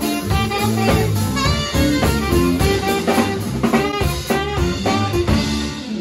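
Background music: an upbeat swing-style jazz track with a steady drum beat.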